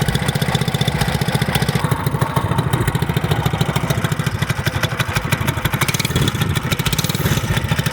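212cc single-cylinder engine of a Coleman CT100U mini bike, freshly rebuilt with a billet connecting rod and flat-top piston and being broken in, running steadily just after start-up with a rapid, even exhaust beat.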